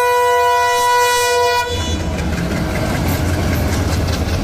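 A diesel locomotive's air horn sounds one steady note for nearly two seconds and cuts off. Then comes the steady low rumble of a WDM-3A diesel locomotive and its coaches running over a bridge.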